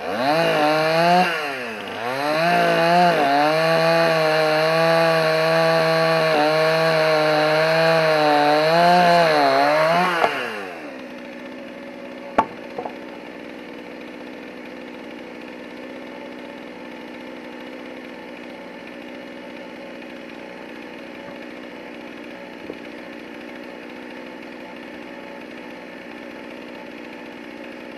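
Two-stroke chainsaw revving up and cutting through hickory slab at high revs, its pitch dipping once about two seconds in. The engine drops off after about ten seconds. The owner says the chain is dull after hitting a nail. Afterwards there is only a quieter steady hum with a few light clicks.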